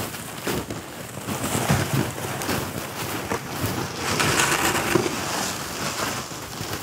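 Footsteps crunching and shuffling through deep snow as people haul loaded toboggans up a steep slope, with the toboggans scraping over the snow. The crunches are irregular and get louder around the middle.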